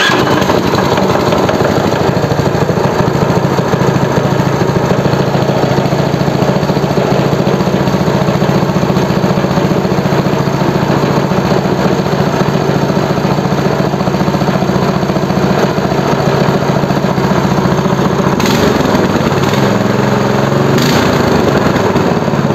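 New 7 hp single-cylinder four-stroke engine with electric start running steadily, then revved twice in quick succession near the end.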